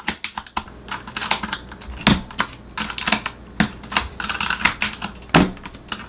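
Typing on a Corsair K70 LUX mechanical keyboard with Cherry MX Blue clicky switches: a fast, irregular run of key clicks.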